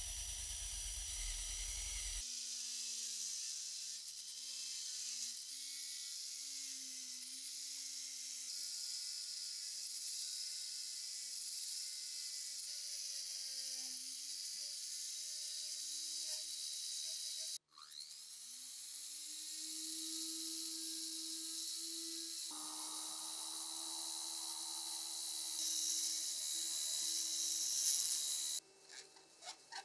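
Rotary tool spinning a brass wire brush wheel against rusty steel gun parts: a high motor whine that sags and recovers in pitch as the brush bears on the metal, over a steady scratchy hiss from the wire bristles. It breaks off briefly about two-thirds of the way through, and near the end the brushing stops, leaving a few light clicks.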